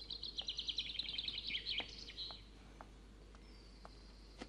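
A songbird singing a fast, high trill of rapid chirps for about two seconds, followed by fainter high calls and a few faint clicks.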